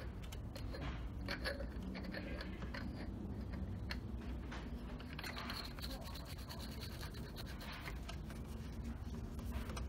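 Metal oil catch can cup being screwed back onto its head by hand: faint scratchy rubbing of the threads with a few small clicks, over a steady low hum.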